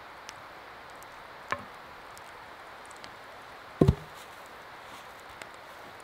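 Wood knocking on wood: a lighter knock about a second and a half in, then a heavier double thud near four seconds, over a steady soft hiss.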